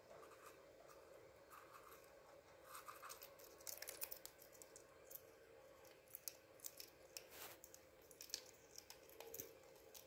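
Faint scattered scratching and clicking from an African grey parrot working its beak against the bars of its wire cage. The scratches start a couple of seconds in, over a faint steady room hum.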